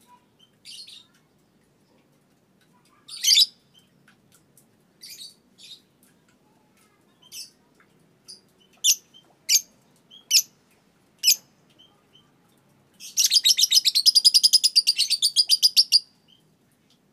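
Young Fischer's lovebird, about two and a half months old, giving scattered single sharp chirps, then about three quarters of the way in a rapid chattering trill of many quick notes lasting about three seconds: the long 'ngekek' call that lovebird keepers prize.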